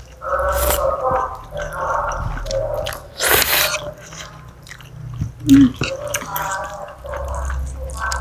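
Spicy noodles being slurped and chewed, with repeated wet mouth sounds and small clicks. A loud slurp comes a little over three seconds in, and a short low knock about five and a half seconds in.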